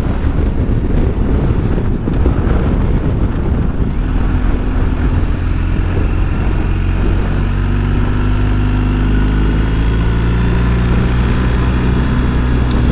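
BMW R1250GS Adventure's boxer-twin engine running on the road, with wind noise on the microphone. About four seconds in, the engine settles into a steady, even note.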